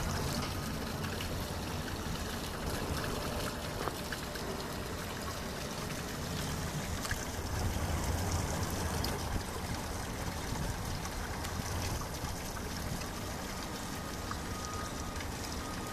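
Water from a stormwater drain outfall trickling and running steadily into the marina at low tide.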